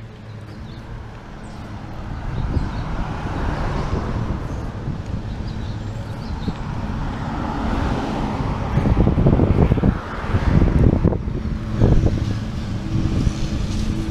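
Street traffic, a car going past, with wind buffeting the microphone in gusts from about eight seconds in as the bicycle rides along.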